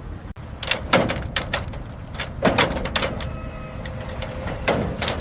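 Three clusters of sharp knocks and clatters over a steady low rumble, with a short faint tone a little after three seconds in.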